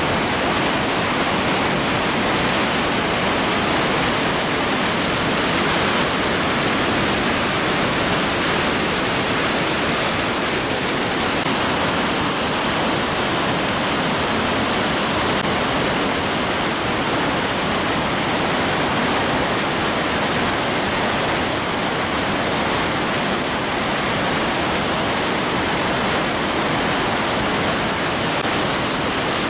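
Floodwater of the South Esk River rushing over rocks and rapids: a loud, steady rush of churning white water, the river swollen and in flood.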